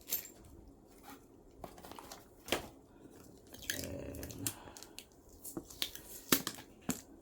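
Unboxing handling sounds: scattered clicks and knocks of hard lock parts and packaging being moved, with a short stretch of rustling packaging about four seconds in.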